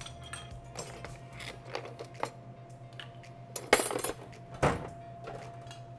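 Large ice cubes clinking and knocking as they are set into a cocktail glass with metal tongs, a few separate clinks spread out, then a louder clatter about two-thirds of the way through and one more knock soon after as the ice tub is handled.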